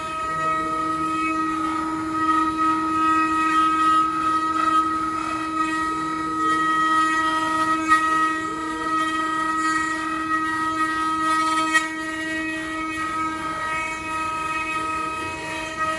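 Multi-spindle 4-axis CNC router carving wooden furniture legs: several spindles whine in steady high tones over the noise of the bits cutting wood. The lowest tone fades away a few seconds before the end.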